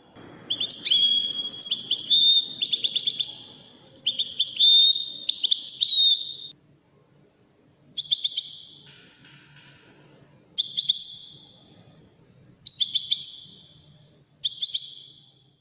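A songbird singing high, quick trilled phrases. They run almost without a break for about six seconds, then, after a short pause, come singly every couple of seconds.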